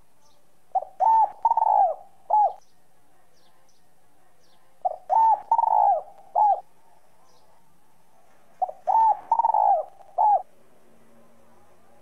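Spotted dove (Streptopelia chinensis) cooing in the clear, whistle-like voice type keepers call giọng còi: three phrases about four seconds apart, each a run of arching coos ending, after a short gap, in one clipped final note. Faint high chirps of small birds lie underneath.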